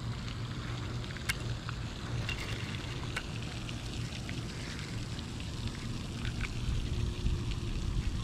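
Wind buffeting the microphone, heard as a steady, uneven low rumble, with a few faint clicks scattered through it.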